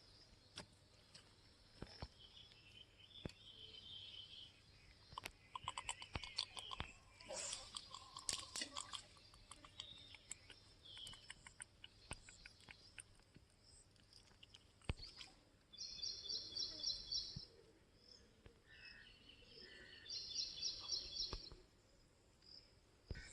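Scattered clicks and crackling, with high chirping calls from birds or insects; two bursts of rapid repeated chirps stand out about two-thirds of the way through and again near the end.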